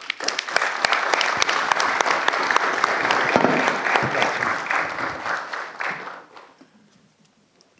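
Audience applauding, a dense patter of many hands clapping that thins out and dies away about six seconds in.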